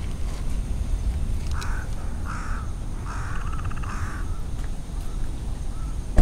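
A crow cawing three times, short harsh calls with the third one longer and rattly.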